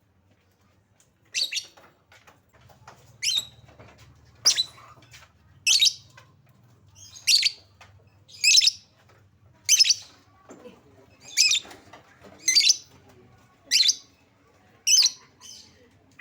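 Lovebird giving short, shrill calls, one about every second and a quarter, starting about a second in. It is a lure call, used to get other lovebirds to respond.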